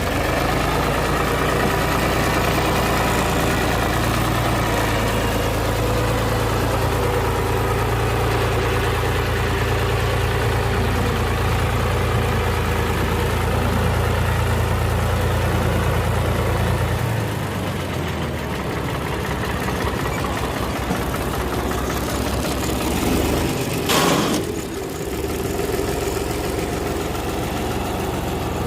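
Farmtrac 70 HP tractor's diesel engine running steadily while working a rear-mounted dozer blade to level soil; its deep engine note eases about two-thirds of the way in. A short, sharp clank comes near the end.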